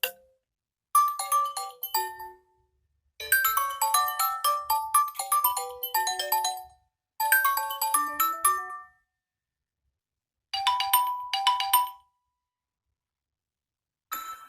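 Nokia 6 phone's stock ringtones and alert tones playing one after another: four short chiming melodies of quick pitched notes, each stopping dead before the next begins after a second or two of silence.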